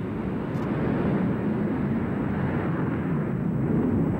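F-15 Eagle fighter's twin jet engines at takeoff power in afterburner on the takeoff roll, a loud steady jet noise. It grows louder about a second in and then holds.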